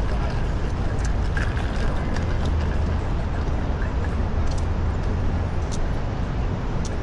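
Manhattan street traffic: a steady rumble of engines and tyres, with a few faint sharp ticks over it.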